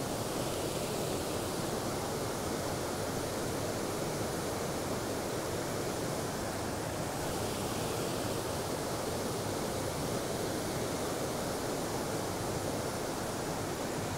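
Small mountain trout stream rushing steadily over boulders, a constant even rush of water.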